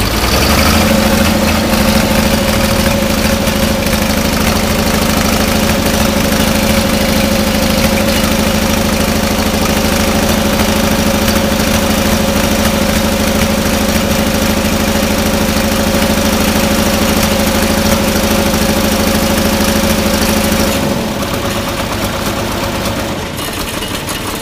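Oliver 770 industrial tractor's six-cylinder diesel engine running steadily just after starting, with air being purged from its freshly reconnected fuel line; it runs evenly without stumbling, showing there was little air in the line. Near the end it drops to a lower, quieter speed.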